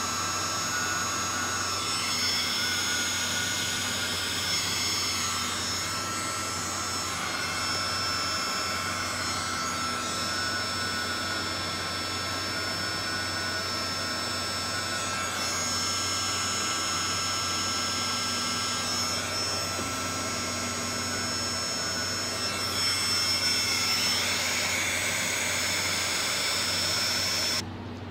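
Electric heat gun running, its fan blowing steadily with a whine, as it shrinks heat-shrink tubing over soldered wire joints. The tone swirls slowly now and then as the gun is moved about, and it stops abruptly near the end.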